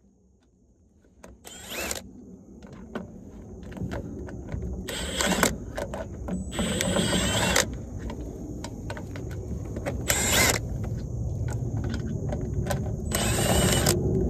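Cloth rubbing against the phone's microphone in several short rustling bursts, with low handling rumble and scattered small metallic clicks from hand tools working on the truck's underside bolts.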